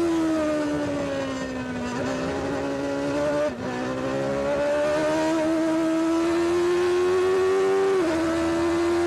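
Benetton B189 Formula One car's 3.5-litre Ford V8 heard from onboard: the engine note falls as the car slows for a corner, breaks briefly about three and a half seconds in, then climbs steadily as it accelerates out, with a sudden drop in pitch from an upshift about eight seconds in.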